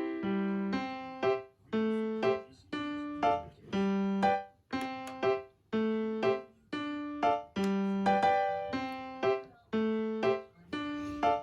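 Background piano music: an unhurried run of struck notes and chords, each ringing and fading before the next.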